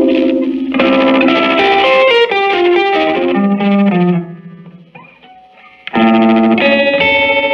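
Electric guitar played through a Silvertone 1484 tube amp on channel 2 with the tremolo at full depth: chords and a descending single-note line, their volume pulsing rapidly. The playing fades about four and a half seconds in, then a fresh chord rings out about six seconds in.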